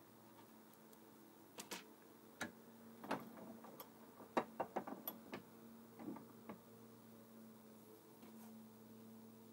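Light metallic clicks and knocks, about a dozen scattered through the first two-thirds, as a toy-car gearbox differential with its steel ring gear is handled in a bench vise and worked with a hex key. A faint steady hum runs underneath.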